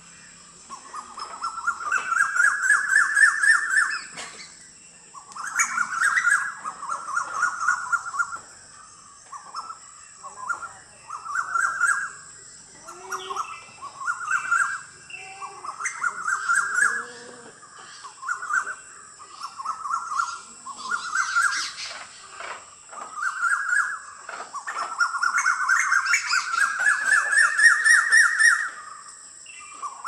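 Asian koel calling: a run of repeated phrases, several of them rising steadily in pitch, with short pauses between.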